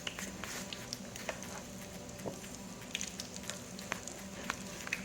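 Flour-coated chicken gizzards frying in a pot of hot oil: steady sizzling with many scattered crackles and pops.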